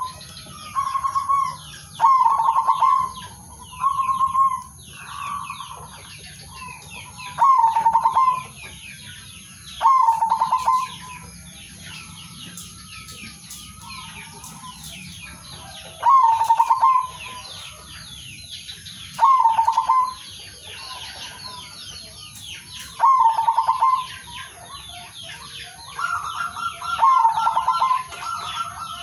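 Male zebra dove (perkutut) cooing its staccato trilled call, about ten phrases of roughly a second each at irregular spacing with a long pause in the middle; near the end a second dove's call overlaps at a slightly higher pitch. Small birds chirp continuously in the background.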